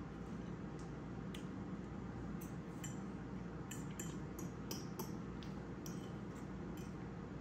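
Metal fork clicking and tapping against a bowl while eating, a string of light clicks that comes thicker from about two seconds in, over a steady low hum.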